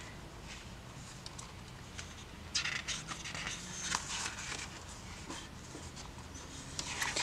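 Paper pages of a photobook being turned by hand, rustling and sliding in a few short bursts, the loudest about two and a half seconds in and another near the end.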